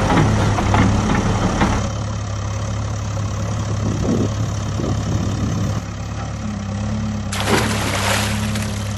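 A steady engine hum, like a backhoe loader's engine idling. About seven seconds in, a splash of water comes in over it and lasts a couple of seconds.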